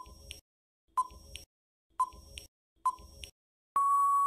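Quiz countdown timer sound effect: a short tick with a fainter second click just after, once a second. Near the end the ticking gives way to a steady electronic beep held for most of a second, signalling time up.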